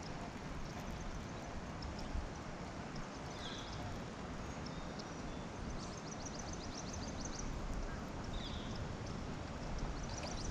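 Steady wind rumble on the microphone with light water noise around a small boat. From about six to seven and a half seconds in comes a run of fast, faint ticks from a baitcasting reel being cranked on the retrieve.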